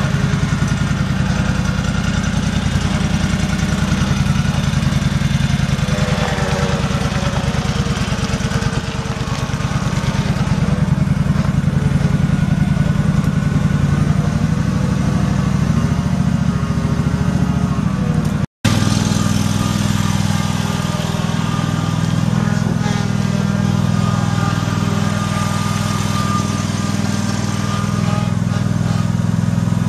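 Kawasaki V-twin engine of a John Deere 757 Z-Track zero-turn mower running steadily. The sound cuts out for an instant a little past the middle.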